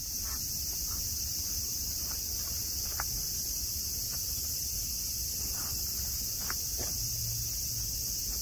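Summer cicada chorus: a steady, dense, high-pitched drone, with a few faint short snaps scattered through it.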